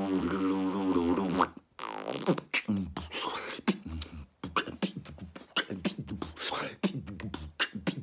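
A man beatboxing: a held, wavering hummed tone for about a second and a half, then a quick run of mouth clicks and percussive hits with low hums underneath.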